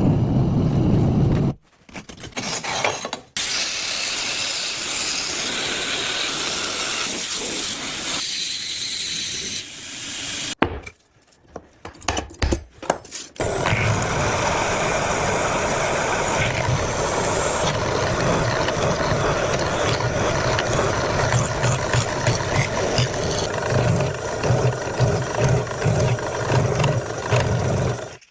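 Steel knife blade being ground and sharpened: long stretches of steady scraping, broken by a few abrupt cuts and short choppy stretches. Near the end come separate rubbing strokes, about two a second.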